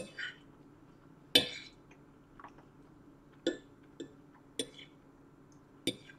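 A fork clinking and scraping against a plate while pasta is scooped up: about six short, sharp clinks, the loudest about a second and a half in.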